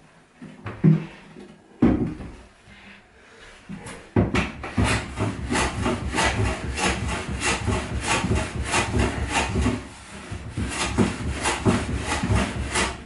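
A few knocks on wood, then from about four seconds in a hand tool is worked back and forth over wood in quick rhythmic strokes, about three a second, with a short lull near ten seconds.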